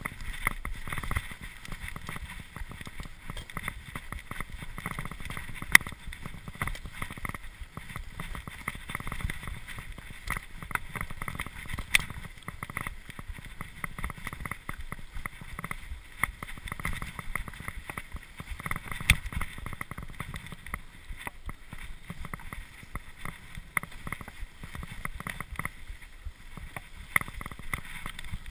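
Cube LTD Pro mountain bike ridden fast over rough dirt trail, heard through a chest-mounted action camera: a constant rattling clatter and rumble of tyres and frame over the bumpy ground. Three sharper knocks stand out, about six, twelve and nineteen seconds in.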